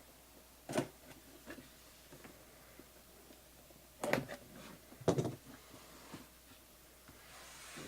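Packaging of a boxed memorabilia jersey being handled and opened: a few short knocks and rustles, one about a second in and two louder ones around four and five seconds in.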